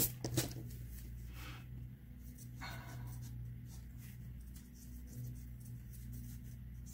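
Pencil scratching lightly on drawing paper in short, soft strokes, with a few small clicks at the start. A steady low electrical hum runs underneath.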